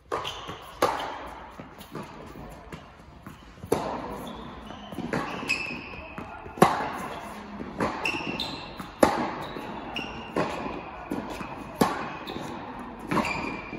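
Tennis rally on an indoor court: the ball struck by rackets about every two to three seconds, each hit echoing in the hall, with short high squeaks between the strokes.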